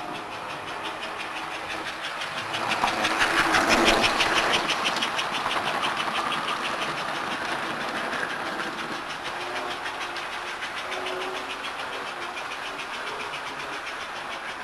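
American Flyer model train running past on its track with a rapid, even clicking. It grows loudest about three to four seconds in as it passes close, then slowly fades as it runs away.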